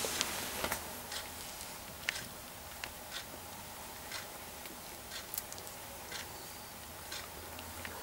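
Faint scattered ticks and soft clicks from a mother cat licking and nursing her kittens, over a low steady room hum.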